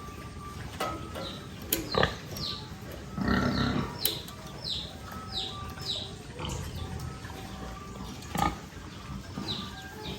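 Piglets squealing and grunting, with short high squeals that fall in pitch, repeating about twice a second, and a few sharp knocks.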